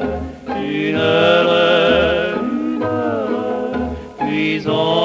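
A male vocal duo's French popular song: long, drawn-out sung notes with vibrato over a light orchestral accompaniment with a regular two-beat bass.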